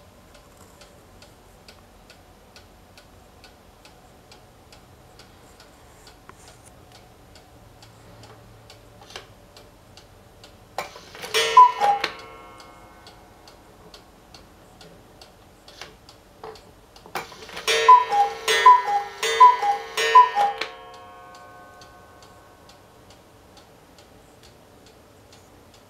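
Schneider Black Forest cuckoo clock ticking steadily. About halfway through it gives a single two-note cuckoo call, high then lower, and a few seconds later four more cuckoo calls in a row, striking four o'clock.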